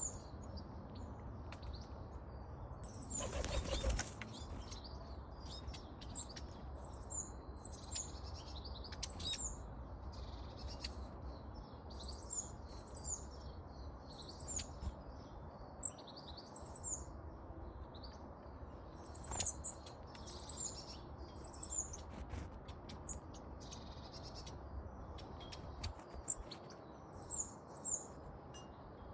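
Small garden birds chirping and calling at a bird feeder, many short high notes repeated throughout. About three seconds in comes a brief rustling burst.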